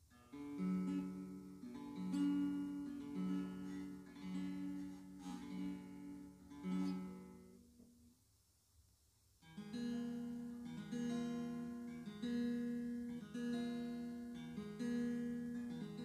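Background acoustic guitar music: plucked notes in a steady repeating pattern, with a short pause just past the middle.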